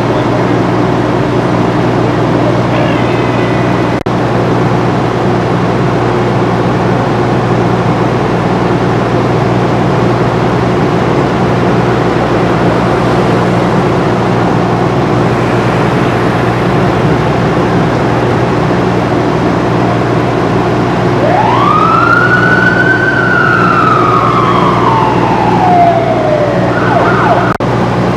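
A steady engine drone runs throughout. About three-quarters of the way through, one siren wail sweeps quickly up in pitch and then slides slowly back down over several seconds.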